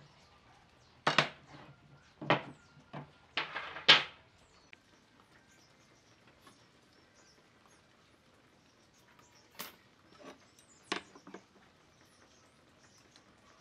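Sharp knocks and clatter of a large steel square and pine boards being handled and set down on a wooden workbench: four loud knocks in the first four seconds, then a few quieter ones later on.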